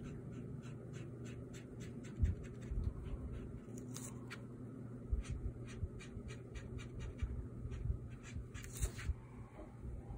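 Ink pen scratching on paper in quick, short strokes, a few a second, with two longer scratchy rustles and a few low thumps.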